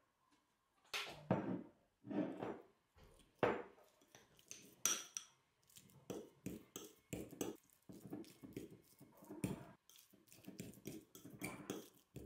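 Metal fork mashing baked squash in a small ceramic bowl, the tines scraping and tapping against the bowl in irregular strokes.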